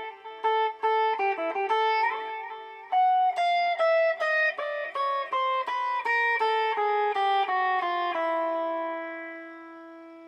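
Guitar played through a BOSS DD-8 digital delay pedal in Warp mode: a quick run of picked single notes. About eight seconds in, a held chord rings out and slowly fades.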